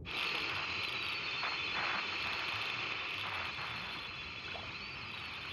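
Old television hissing and crackling with static, a steady noise that cuts in suddenly: the set has poor reception and its picture is breaking up.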